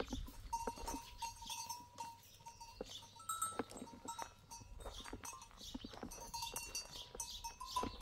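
Animal calls, with scattered knocks and clinks and a broken, faint ringing tone throughout.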